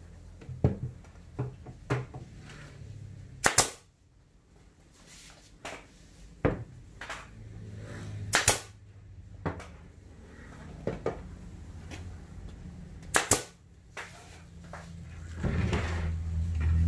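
F-type nail gun firing F30 brads into plywood panel joints: a handful of sharp shots, the loudest three about five seconds apart, lightly tacking the panels of an 18-inch horn-loaded subwoofer kit together. A low hum swells in near the end.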